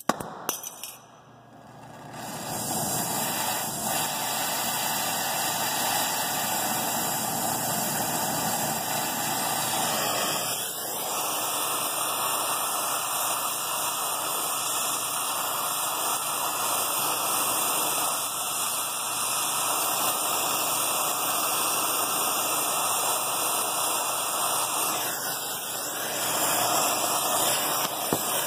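Brazing torch flame hissing steadily on a copper refrigerant line joint at a refrigeration compressor stub, with nitrogen flowing through the line. The hiss comes up about two seconds in and then holds level.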